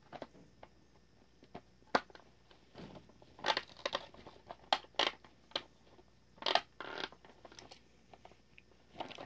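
Clicks and short bursts of scraping and rustling as hands work the plastic parts and fabric costume of a Rock-A-Long Santa animatronic, trying to fit a part that is not lining up. A few sharp clicks come first, and the scraping starts about three seconds in.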